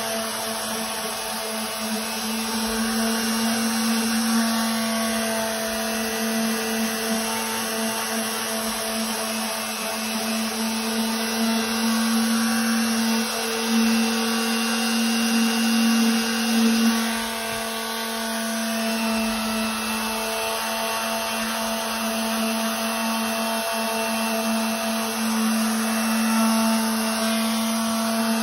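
Electric orbital detail sander running steadily with 60-grit paper, its pad pressed against the cut edge of a rubber pool table cushion to sand it back to the line. A steady motor hum, a little louder for a few seconds past the middle.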